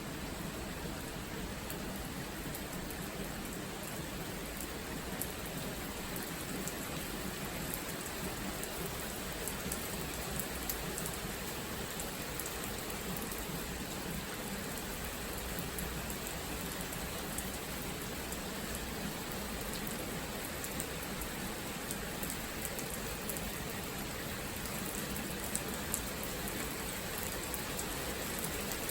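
Steady rain falling, a continuous hiss with scattered sharper drop ticks.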